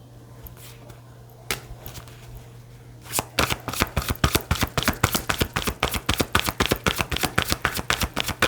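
Tarot deck being shuffled by hand. After a mostly quiet start with a single tap, a fast run of card-riffling clicks begins about three seconds in, several a second.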